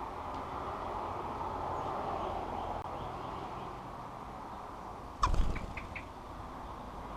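A bird landing at the bird table right by the camera: a sudden bump and brief flutter about five seconds in, with a few short high chirps or scrapes, over a steady low background rumble.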